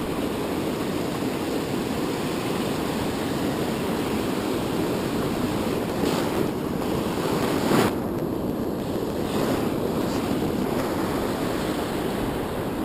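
Ocean surf breaking and washing up a sandy beach, a steady rushing wash with two brief louder surges past the middle.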